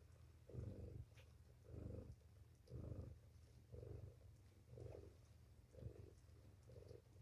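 A cat purring faintly and steadily, the purr swelling about once a second with each breath.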